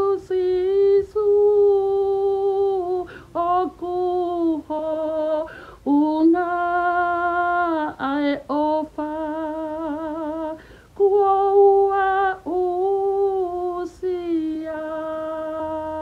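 A woman singing unaccompanied: long held notes with a wavering vibrato, broken every few seconds by short pauses for breath.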